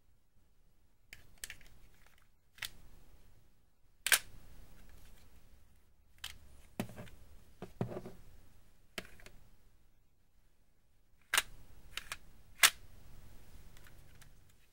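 LEGO-built Heckler & Koch USP pistol's plastic mechanism working: about ten sharp plastic clacks and snaps at irregular intervals, two of them much louder than the rest.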